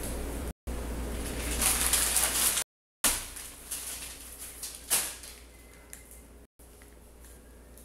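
Rustling of paper banknotes and receipts stuck with honey to a moving body, with two sharp knocks, about three and five seconds in. The sound cuts out completely for a moment three times.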